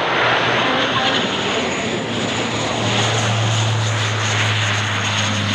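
Lockheed MC-130J Commando II's four Rolls-Royce AE 2100 turboprops and propellers running as the aircraft flies low past on its landing approach. It is a steady roar with a low propeller drone that grows stronger about three seconds in as it passes.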